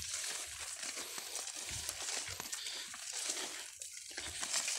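Young corn leaves rustling and crinkling as they brush against someone walking through the rows, with a few soft, dull thuds of steps.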